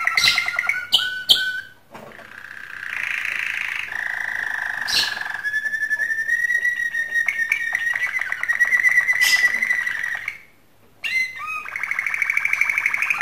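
Male domestic canary singing in breeding condition: long runs of fast rolling trills and whistled notes, breaking off briefly about ten seconds in and then starting again.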